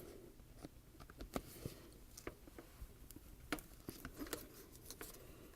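Faint, scattered small clicks and taps of plastic parts being handled as the flexible bottom piece of a Proflex paintball mask is fitted back onto the mask.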